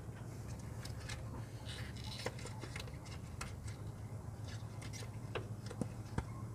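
Hands working a rubber headlight dust cover over an LED bulb and its wiring, with many small scattered clicks and rubbing sounds. A steady low hum runs underneath.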